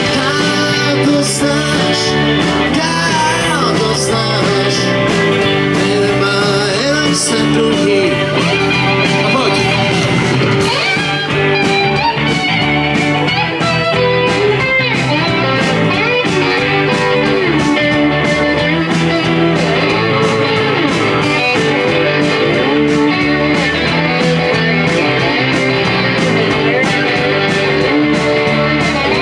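Live rock band playing an instrumental break: an electric guitar plays a lead solo with bent notes over bass and drums, on a Stratocaster-style guitar.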